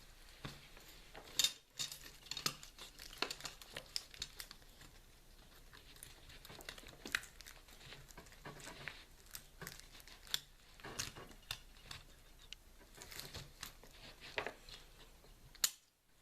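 Irregular clicks, taps and rustling of things being handled, with a sharper click about a second and a half in and another just before the end.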